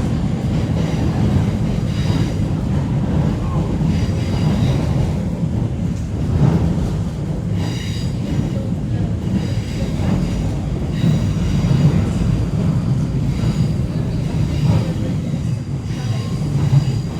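Steady rumble of a moving X'Trapolis 2.0 electric suburban train heard from inside the carriage, with faint high-pitched tones coming and going above it.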